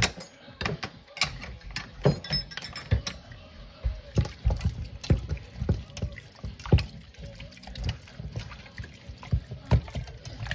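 Bare hands rubbing and working a wet seasoning paste into raw chicken pieces: irregular wet squelches and soft slaps, about one or two a second.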